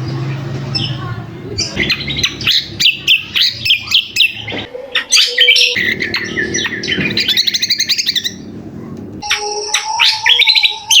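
Kecial kombok calling noisily: rapid runs of high chirps and trilled notes, with a short break about three-quarters of the way through before the chirping starts again.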